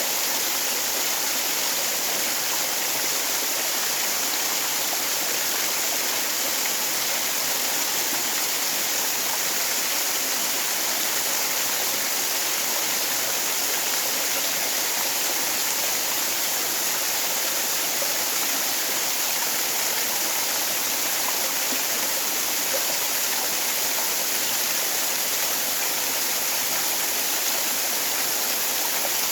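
Waterfall and the stream below it rushing in a steady, even hiss.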